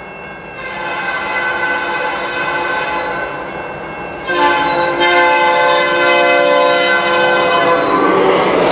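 CN freight train's locomotive air horn blowing a chord in long blasts, the second blast, starting about four seconds in, louder than the first.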